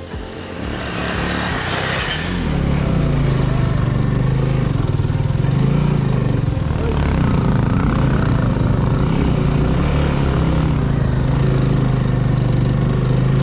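Motorcycle engine running steadily under load, its pitch rising and dipping slightly, after a quieter, noisier first two seconds.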